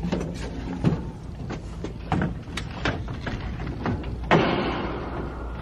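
Stacked framed wall-art prints knocking and clacking against one another as they are tipped forward and flipped through, with several sharp knocks at irregular intervals and the loudest knock about four seconds in.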